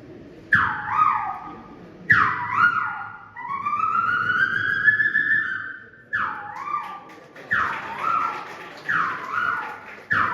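A man imitating the Asian koel's song with his voice: whistle-like calls, each swooping down from high to low, repeated about every second and a half, with one long rising call about a third of the way in.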